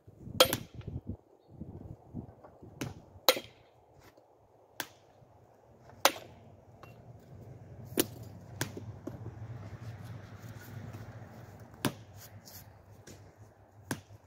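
Hand chiseling of Indiana limestone: a hammer striking a steel chisel in sharp taps, about nine of them at uneven intervals. A low rumble rises and fades in the middle.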